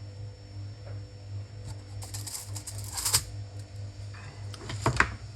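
Light clicks and rattles of small tools or parts being handled on a workbench: a cluster about two seconds in and a few sharper clicks near the end, over a steady low hum.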